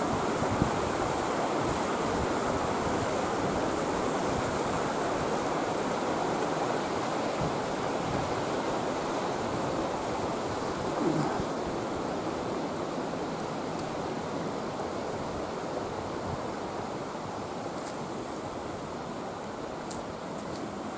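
Mountain stream rushing steadily, a continuous wash of flowing water that grows gradually fainter over the second half.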